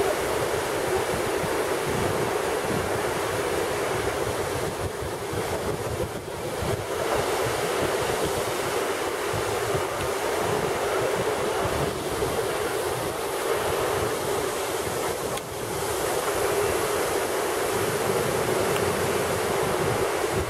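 Rinka waterfall's steady rush of falling water heard close up, with wind buffeting the microphone; the level dips briefly twice.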